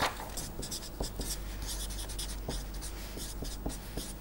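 Marker pen writing on paper: a run of short scratchy strokes, with a faint steady low hum underneath.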